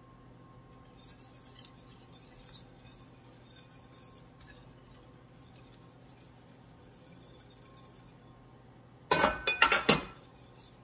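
Faint steady rustle as salt is added to the pot, then about nine seconds in a quick run of loud, ringing clinks of a kitchen utensil against cookware.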